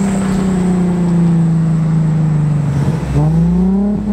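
Chevy 6.0 V8 engine running hard under throttle, heard from inside the cab over road and wind noise; its note sags slowly, dips sharply about three seconds in and climbs back up.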